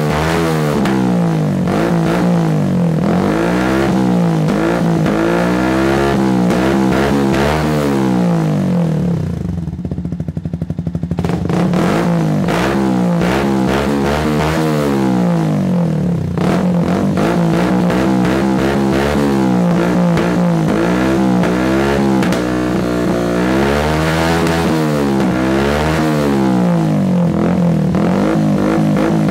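Yamaha YZF-R125's 125 cc single-cylinder four-stroke engine revved repeatedly through a Turbo Kit carbon GP exhaust with the baffle removed. The revs rise and fall about every two seconds, and the engine drops briefly to a steady idle about a third of the way in before the revving resumes.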